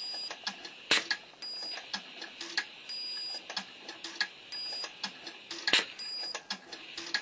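Hornby OO-gauge live steam locomotive standing on the track: irregular sharp clicks and ticks over a steady faint hiss, with a short high tone recurring every second or so.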